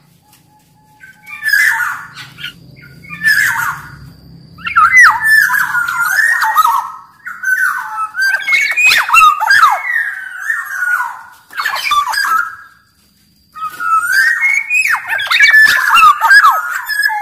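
Black-naped oriole (kepodang) singing in repeated phrases of fluty, gliding whistles mixed with harsh, squawking notes, with short pauses between the phrases.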